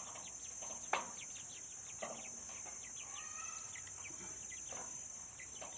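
Birds chirping: many short, quick falling chirps scattered through, over a steady high insect drone, with a single knock about a second in.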